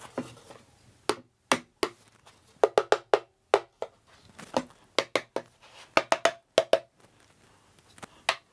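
A mallet tapping lightly on a wooden canvas stretcher frame, knocking the still slightly loose corner joints and cross-bar together. About twenty sharp wooden knocks, some with a short ring, come in quick clusters of two to four.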